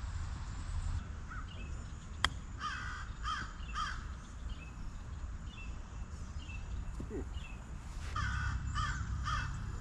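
Crow cawing in two runs of three caws each, the first run a couple of seconds in and the second near the end. A single sharp click comes just before the first run, a golf club striking the ball.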